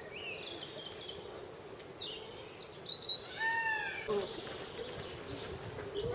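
Birds chirping and calling outdoors: a few short chirps and pitch glides, then an arched call with a rising-then-falling pitch about three and a half seconds in, over a steady background hiss. A few sharp clicks sound just before the arched call.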